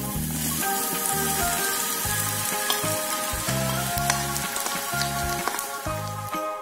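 Shredded tempe sizzling as it slides into hot cooking oil, the sizzle starting as the first pieces hit the oil, over background music.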